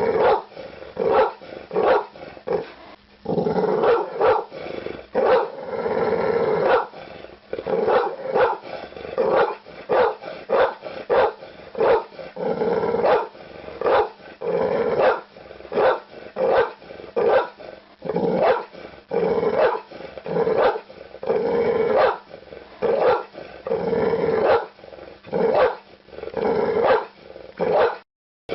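Pit bull barking over and over, about two barks a second, with a few longer, drawn-out sounds between about three and seven seconds in. A short gap of silence comes near the end.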